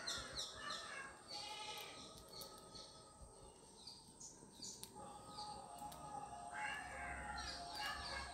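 Birds calling in the surrounding trees: clusters of short, falling chirps and a few harsher calls near the start and again near the end, with a quieter stretch in between.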